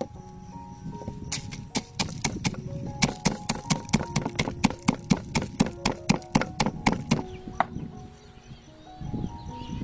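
Wooden pestle pounding roasted peanuts in a wooden mortar: a quick run of sharp knocks, about five a second, that stops shortly before the end.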